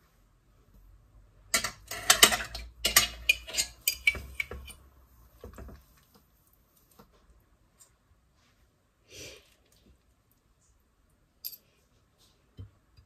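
Metal fork and spoon clinking and scraping against a ceramic baking dish and plate while serving food. A dense run of clinks comes in the first few seconds, then only a few scattered taps.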